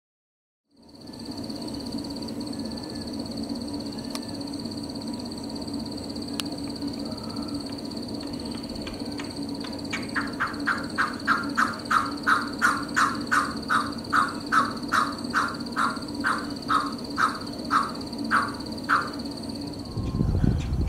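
Male pheasant coucal calling: a run of about twenty short, evenly spaced notes, about two a second, that starts about nine seconds in, grows louder and fades away near the end. Underneath is a steady high-pitched tone and a low hum, and a low rumble comes in at the very end.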